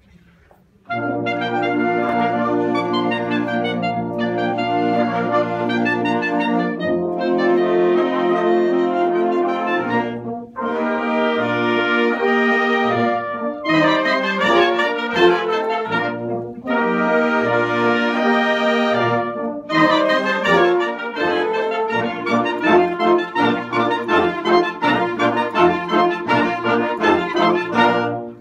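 Concert band playing, led by brass. It comes in about a second in on a held low chord, then goes on in short phrases with brief breaks between them.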